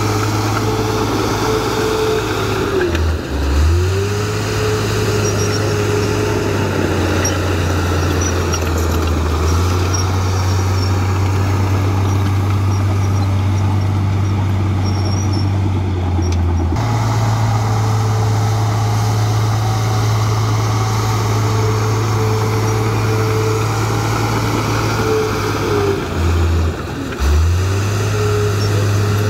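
Komatsu D53A crawler bulldozer's diesel engine running hard and steady while the blade pushes earth. Its pitch sags sharply twice, a few seconds in and near the end, then climbs back: the engine pulling down under blade load and recovering. The sound jumps abruptly just past halfway.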